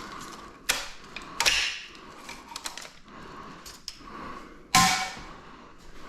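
Scattered metallic clicks and clanks as engine parts and hand tools are handled during a teardown. The loudest is a sharp clank with a short metallic ring about three-quarters of the way through.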